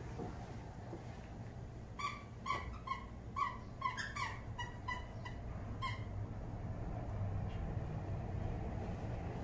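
A run of about ten short, high squeaks, irregularly spaced over about four seconds, each starting with a small click, over a low steady hum.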